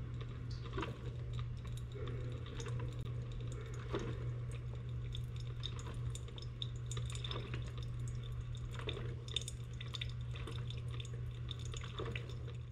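Household sounds of water dripping and small clinks of glass or dishes over a steady low hum.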